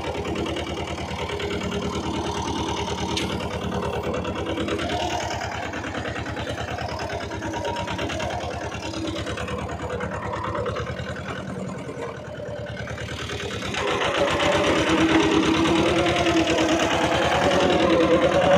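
Small farm tractor's engine running steadily as it drives across a tilled field. It dips slightly about twelve seconds in, then grows clearly louder from about fourteen seconds in.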